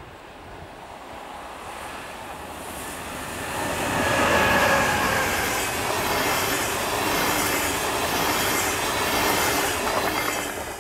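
Intercity 2 double-deck train hauled by a class 147 electric locomotive passing at speed: wheel and rail noise grows as it approaches, is loudest about four seconds in, and stays high as the double-deck coaches rush by.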